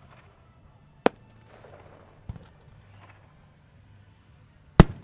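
Aerial fireworks shells bursting overhead: a sharp bang about a second in, a weaker one a second later, and the loudest bang near the end.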